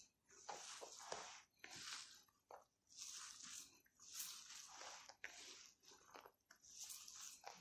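Faint gritty, squishy rustle of moistened bulgur being kneaded and squeezed by hand in a plastic bowl, in repeated strokes about once a second.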